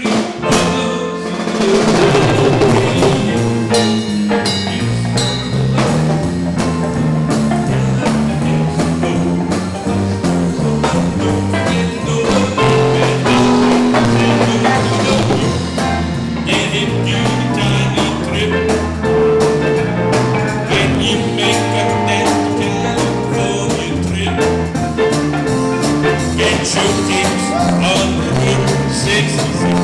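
Jazz-style instrumental music with a drum kit keeping time and a bass line stepping from note to note.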